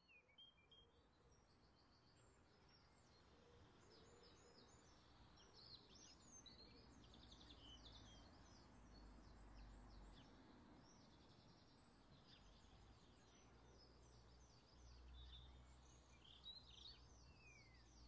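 Faint birdsong: several small birds chirping continuously in quick overlapping phrases, over a low steady rumble. It is an ambience track laid over the picture, not the sound of the bathing blackbird.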